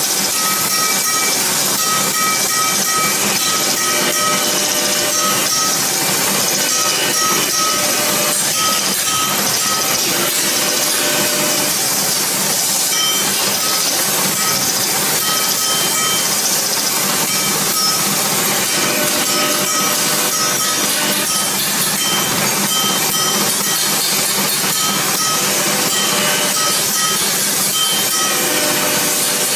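Metal lathe turning a cast brass piece, the cutting tool shaving the spinning brass with a steady hiss-like scraping noise. A thin high tone comes and goes over it as the tool cuts.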